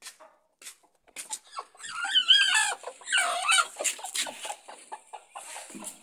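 A chicken squawking loudly in a run of wavering, rising-and-falling calls, after a few sharp knocks in the first second or so.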